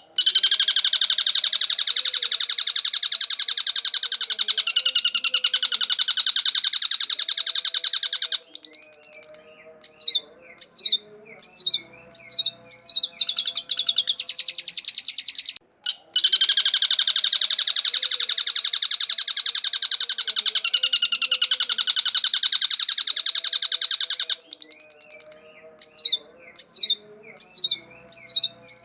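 Long-tailed shrike in full song: a long run of fast, harsh chattering notes, then a string of short separate calls. After a brief break about halfway through, the same passage repeats.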